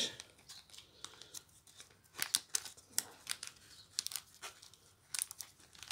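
Small clear plastic bag crinkling and tearing as it is pulled open by hand, in faint, irregular crackles.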